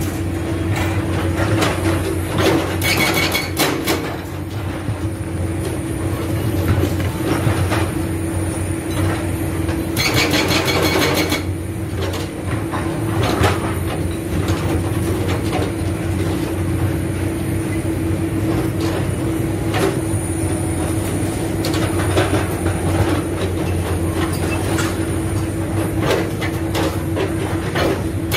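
Hydraulic breaker on an excavator hammering in bursts of rapid blows, over the excavator's steadily running diesel engine. The bursts come about three seconds in, again around ten seconds, and near the end.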